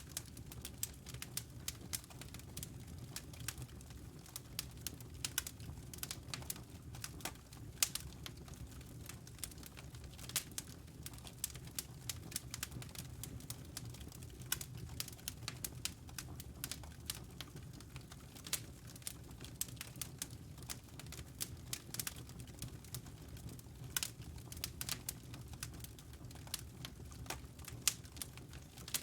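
Wood fire crackling in a fireplace: frequent irregular snaps and pops over a steady low rumble of the burning logs.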